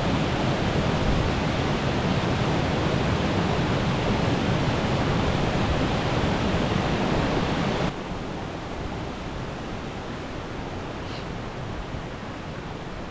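Rain-swollen mountain stream rushing over rocks, a steady roar of water. It drops abruptly quieter about eight seconds in, then rushes on at the lower level.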